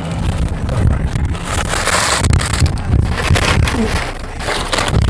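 Close-up chewing and crunching of food, in crackly bursts, over a steady low rumble.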